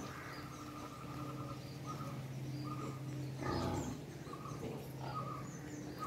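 Quiet pig-pen ambience: a steady low hum with faint, scattered bird chirps, and one short pig grunt about three and a half seconds in.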